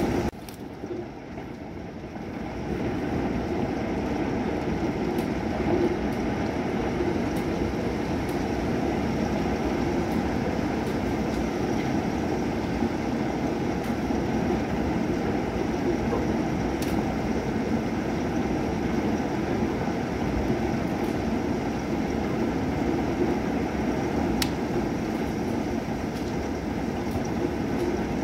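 Steady, even rumble of a heavy night thunderstorm's rain. It drops away sharply just after the start and swells back over about two seconds, with a couple of faint ticks later on.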